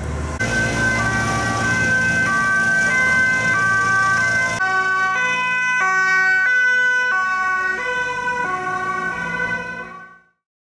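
Emergency-vehicle two-tone sirens, more than one sounding at once, alternating between a high and a low note. The sound changes abruptly about halfway through and fades out near the end.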